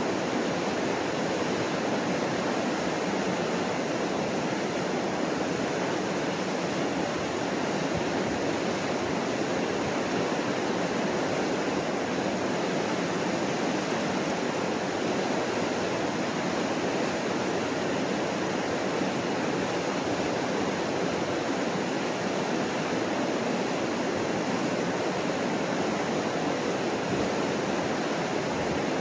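Mississippi River rapids: broad whitewater rushing over a rocky falls, a steady, unbroken rush of water.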